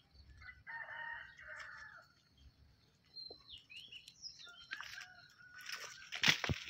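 A rooster crows once, starting about a second in. Near the end come loud sudden rustles and knocks of a pomelo tree's branches and leaves as a baby monkey scrambles down through them.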